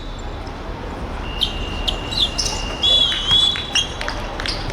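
Court-game sounds from a korfball match: a ball bouncing and players' footfalls, with short high squeaks. A steady high-pitched tone sets in about a second in and wavers briefly near the middle.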